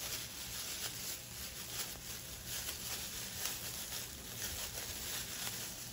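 Thin plastic disposable gloves crinkling and crackling irregularly as gloved hands knead two-part epoxy putty, with a low steady electrical hum underneath.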